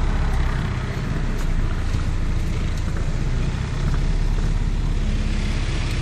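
Car running as it drives along, heard from inside the cabin: a steady low engine and road rumble.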